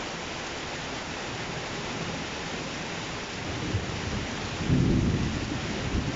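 Heavy rain falling steadily, with a low rumble of thunder that swells up about four seconds in and peaks near five seconds.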